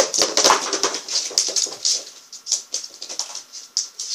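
Staffordshire bull terrier 'talking' for attention, making a quick run of short vocal sounds.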